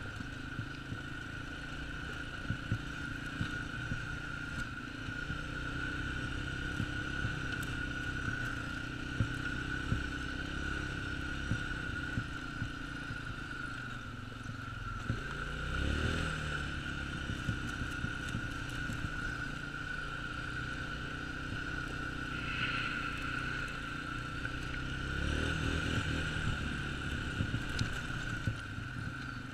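Can-Am Outlander 400 ATV's single-cylinder engine running on the move, with a steady high whine. The engine revs up about halfway through and again near the end, with occasional sharp knocks along the way.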